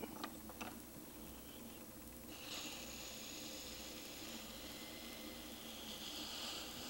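Wet, clay-covered hands rubbing against a bowl turning on a potter's wheel: a faint, steady, hissing swish that begins a little over two seconds in, after a few faint clicks.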